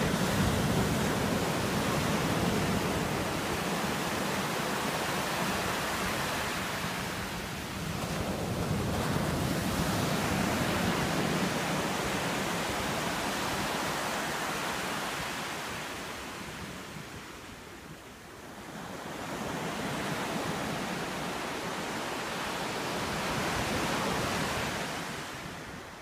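Surf breaking and washing up a sandy beach, a steady rush of water that swells and fades in slow surges, with wind buffeting the microphone.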